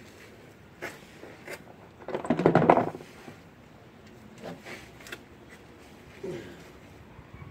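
Metal hand tools being handled: a few single clicks, then a burst of rapid clicking and rattling about two seconds in, with more scattered clicks and a short scrape later.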